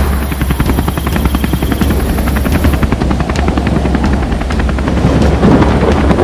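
Cartoon rainstorm sound effect: rain pattering over a steady, fluttering low rumble.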